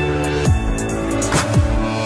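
Electronic background music with deep bass, held tones and a beat of drum hits.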